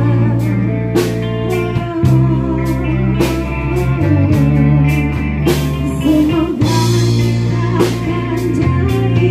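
A live band playing a song on electric guitar, electric bass and drum kit, with drum and cymbal hits marking the beat.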